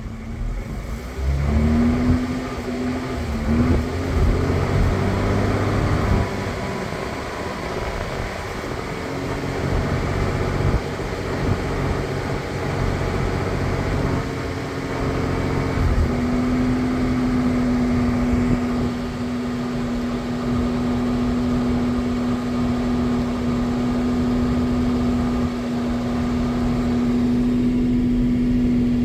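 Jaguar XJ-S 3.6's straight-six engine running with the misfire it is being recorded for. The pitch shifts during the first few seconds, then settles to a steady note about halfway through.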